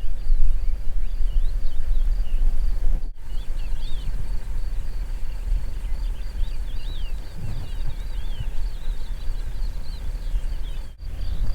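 Outdoor ambience: many small birds chirping and a steady high insect trill over a constant low rumble. Everything drops out for an instant about three seconds in.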